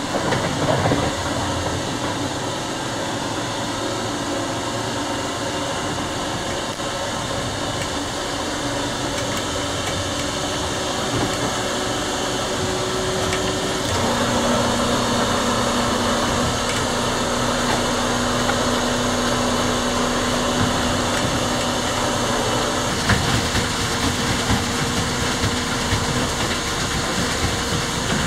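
A boat's motor running steadily under way, mixed with a rushing wash. About halfway through, its tone shifts and a steadier hum sets in.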